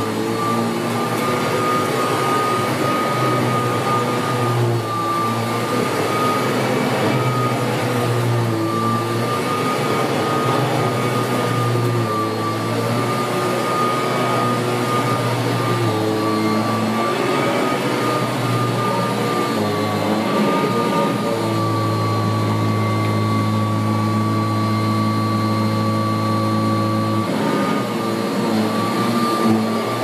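1981 Kirby Heritage 1 upright vacuum cleaner running on carpet: a steady motor drone with a constant high whine, its lower tones shifting slightly as it is pushed back and forth.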